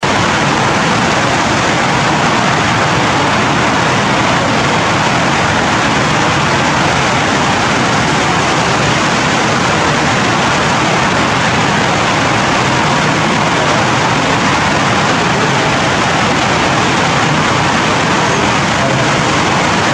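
Steady, dense hiss of heavy rain falling on forest foliage, unchanging throughout.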